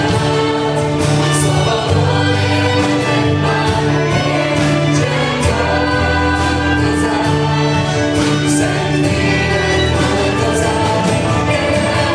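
Live band playing a Hungarian worship song, with voices singing over clarinet, trumpet, drums, bass and guitar at a steady beat.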